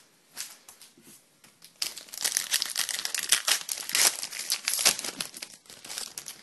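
A trading-card pack's wrapper being torn open and crinkled by hand, with a few light rustles first and then a loud stretch of crackling from about two to five seconds in.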